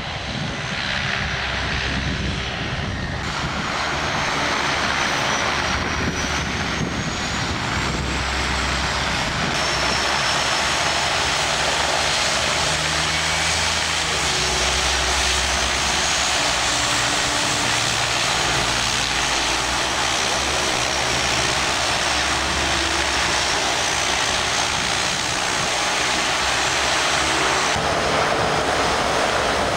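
De Havilland Canada DHC-6 Twin Otter floatplane's twin turboprop engines running on the water: a steady rushing drone with a thin high turbine whine wavering in pitch above it.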